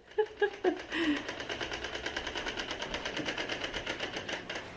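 Small red Radio Flyer toy wagon being pushed across carpet with a dog riding in it, its wheels giving a fast, even clicking rattle of about ten clicks a second. A few brief vocal sounds come in the first second.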